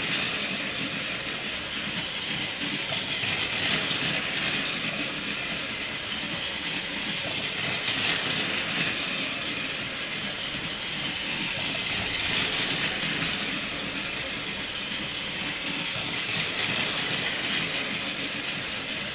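Battery-powered Plarail 100 Series Shinkansen toy train running on plastic track: a steady motor-and-gear whirr with the wheels rattling over the track, swelling about every four seconds as the train comes round its loop past the microphone.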